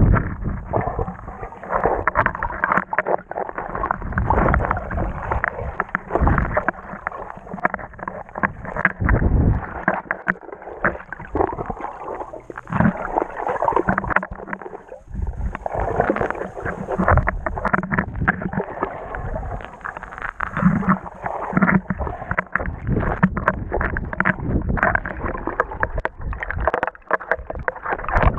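Muffled underwater sound of river water rushing and gurgling, with many irregular knocks and thumps.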